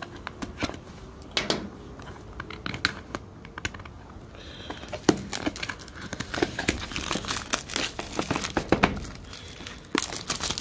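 Clear plastic shrink wrap crinkling and tearing as it is peeled off a small cardboard box by hand: irregular crackles and snaps, busiest in the second half.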